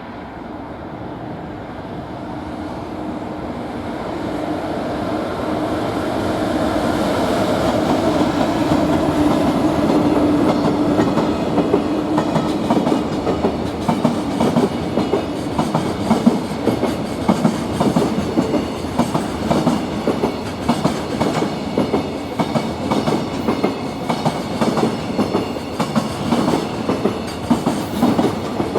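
Freight train passing: a locomotive comes closer with a rising steady hum, then a long line of freight wagons rolls past with wheels clicking rhythmically over the rail joints.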